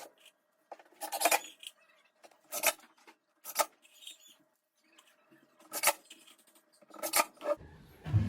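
A handful of short scrapes and knocks, about five, spaced a second or more apart, as plywood drawer-box parts and tools are handled.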